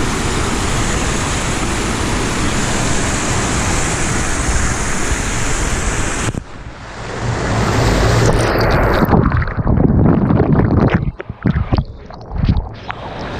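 Floodwater pouring over a concrete spillway weir, a steady rushing noise. About six seconds in the sound changes abruptly, heard from right at the water's surface: heavier and lower, uneven, with brief dropouts.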